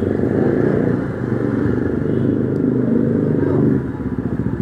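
Motorcycle engine running at low road speed. Near the end the sound drops and turns into a choppier, pulsing beat.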